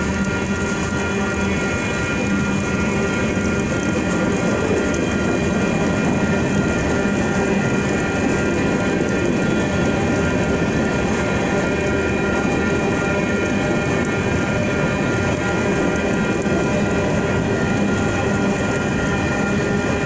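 Freight cars rolling steadily past a grade crossing: continuous wheel-on-rail noise, with the crossing's Western Cullen Hayes Type 2 electronic bells ringing.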